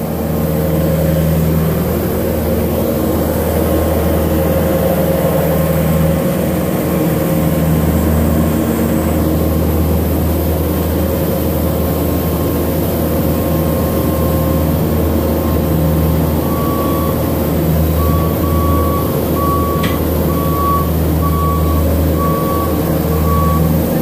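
Bobcat skid steer's diesel engine running steadily while it moves and stacks hay bales. From about two-thirds of the way through, its backup alarm beeps repeatedly, roughly once a second, as the machine reverses.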